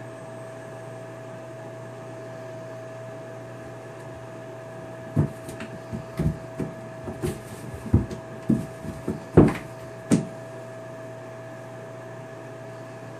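A kitten scrambling in an empty bathtub while chasing its tail: about a dozen irregular thumps and bumps of paws and body against the tub, starting about five seconds in and lasting some five seconds, the loudest near the end. A steady hum runs underneath.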